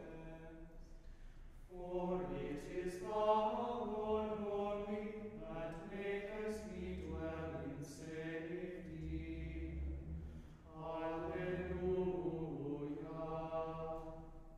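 Small group of men's voices chanting the Compline office a cappella, in sustained sung phrases that grow fuller about two seconds in.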